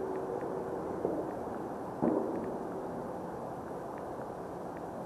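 Steady wind noise over the microphone, broken by two sudden dull knocks about a second apart, the second louder.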